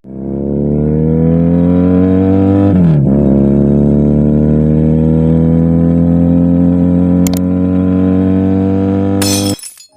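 Motorcycle engine accelerating hard: the revs climb, drop with an upshift about three seconds in, then rise steadily again through the next gear. It ends in a short burst of noise and cuts off just before the end.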